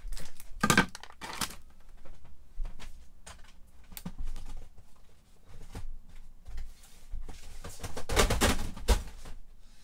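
Plastic rustling and crinkling with light knocks and clicks as things are set down and moved about on a shelf. The rustling comes in louder spells about a second in and again near the end.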